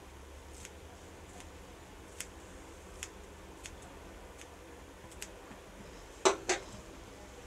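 Ajwain (Indian borage) leaves being snipped into small pieces with scissors: a row of light, sharp snips about one every three-quarters of a second, then two louder clicks a quarter-second apart about six seconds in.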